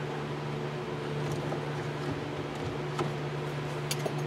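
A steady low hum with a few faint higher tones over it, with a couple of light clicks about three and four seconds in from hands working a rubber shift boot down over a gear lever.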